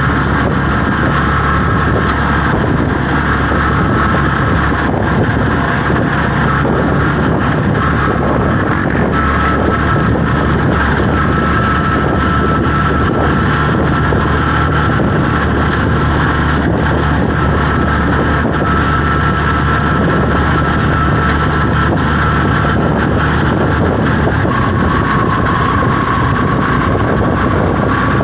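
Engine of a moving open-sided passenger vehicle running at a steady cruising speed, heard from inside with road and wind noise rushing past. A steady drone throughout, with no shifts or sudden events.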